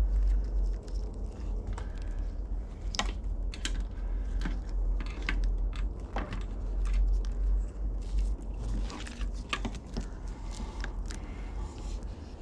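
Yamaha Banshee wiring harness being handled close to the microphone: irregular clicks, crackles and rustles of plastic-insulated wires and connectors rubbing and knocking together, over a steady low rumble.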